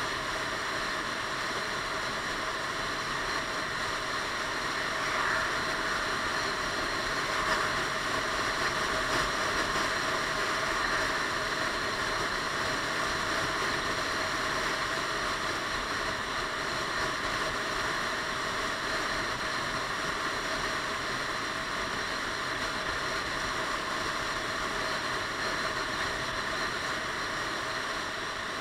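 Steady wind rush over a helmet-mounted action camera while riding a Piaggio Beverly 500 scooter at road speed, with the scooter's engine running underneath. The rush swells a little about five seconds in and eases again after about eleven seconds.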